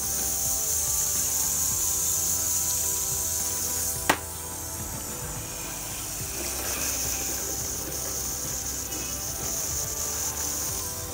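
Steady hiss of a water sprayer misting a seedling, over soft background music. A single sharp click about four seconds in.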